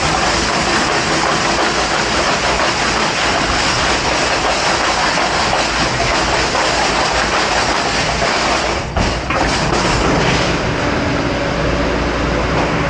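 Commercial dish-pit pre-rinse spray hose hissing as water blasts silverware in a dish rack, over the steady din of the dish area. The rush dips briefly about nine seconds in.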